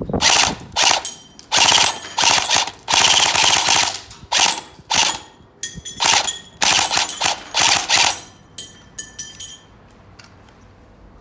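Airsoft M4 rifle firing on full auto in short bursts of rapid shots, one burst longer than the rest, then a few single shots near the end.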